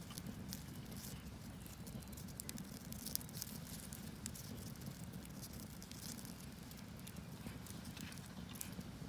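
Firewood burning under a cast-iron cauldron, crackling with irregular small pops over a steady low rumble, and one louder pop about three seconds in.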